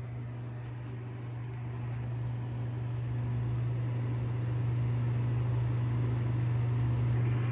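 Steady low droning hum that slowly grows louder, with a few faint clicks in the first second or so.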